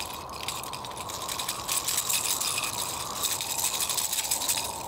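A bunch of hard plastic fishing lures and their treble hooks clicking and rattling together as they are handled. The clicking is quick and irregular and gets busier about two seconds in.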